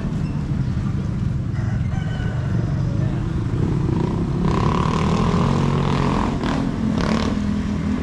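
A motor engine running steadily throughout. About halfway in, a louder, noisier stretch carrying a held higher tone lasts nearly two seconds.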